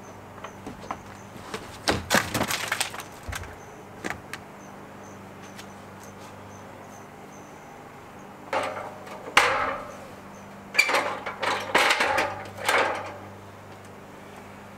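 Pieces of rotted roof plywood clattering, cracking and scraping as they are pulled off a wooden shed and tossed aside. The sound comes in three bursts, about two seconds in and twice more from about halfway through, over a faint steady low hum.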